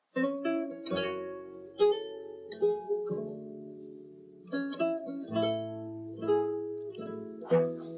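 Music played on a plucked guitar: slow picked notes and chords that ring on over one another.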